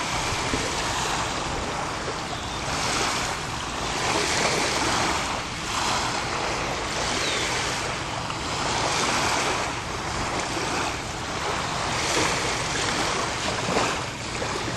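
Small lake waves lapping and washing onto a shallow sand-and-pebble beach, with a wash coming every second or two.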